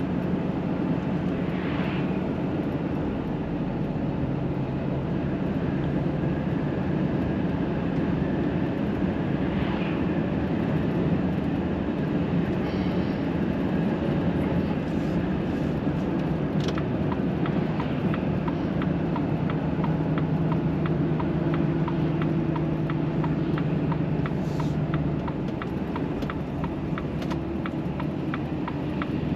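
Volvo FH 540 truck's six-cylinder diesel engine and road noise heard from inside the cab while driving, a steady low drone. A regular ticking joins about halfway through.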